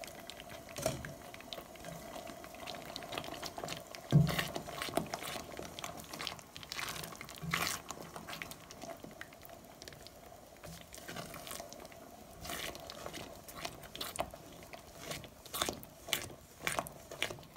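Silicone spatula stirring and scraping a thick, cooking cornflour halwa mixture in a nonstick pot, with scattered wet clicks and a few soft knocks of the spatula against the pan, over a faint steady hum.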